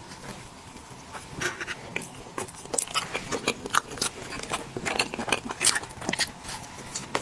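Chewing of soft tiramisu cake: irregular wet mouth clicks and smacks.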